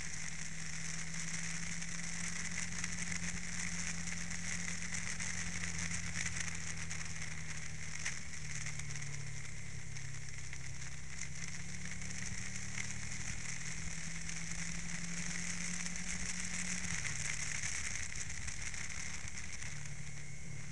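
Aprilia sport motorcycle riding at speed, heard from a camera on the bike: a steady rush of wind hiss over the engine's low hum. The engine note shifts in pitch twice, about eight and seventeen seconds in.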